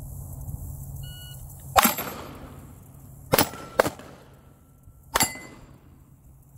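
Four pistol shots from a 9 mm Glock 45, one about two seconds in, a quick pair near the middle and a last one about five seconds in, with a faint ring from struck steel targets after the pair.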